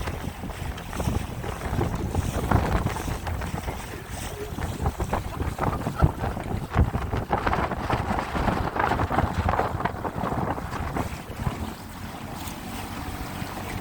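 Boat under way, with wind buffeting the microphone in irregular gusts over a steady rumble of rushing water.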